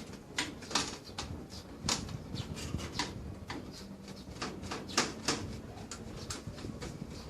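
Irregular clicks and knocks of parts being handled while a motherboard is taken out of a desktop computer case, over a faint steady hum.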